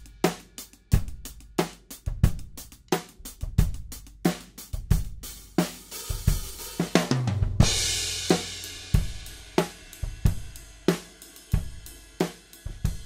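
Acoustic drum kit played with sticks in a steady groove of kick, snare and hi-hat, heard through a pair of Samson C02 small-diaphragm condenser overheads with a kick mic. About seven and a half seconds in, a crash cymbal hit together with a deep kick rings out for over a second.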